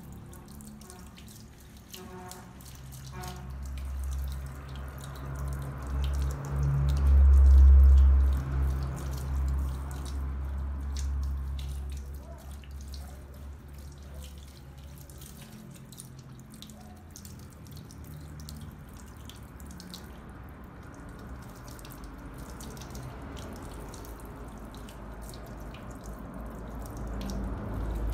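Water from a handheld spray hose splashing and dripping into a salon shampoo basin as hair is rinsed. A loud low rumble swells and fades during the first half.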